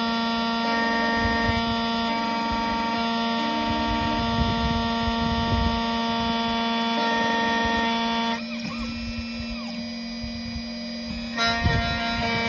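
Electronic key-cutting machine milling a Volkswagen Transporter T5 key blade: a steady whine of several tones, with rough low grinding as the cutter works the blade. About eight seconds in the whine drops away and a short gliding tone is heard, then the whine returns about three seconds later.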